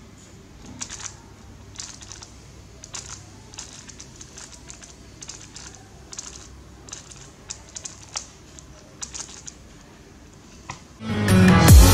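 A 3x3 speed cube being turned by hand, its layers clicking and clacking in short, irregular bursts of turns. Loud electronic music with a heavy beat cuts in near the end.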